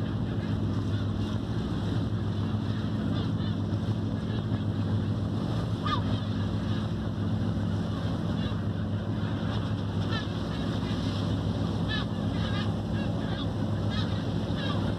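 Fishing boat's engine running with a steady low hum, with wind and water noise, while gulls call in short cries, once around the middle and several times in the latter part.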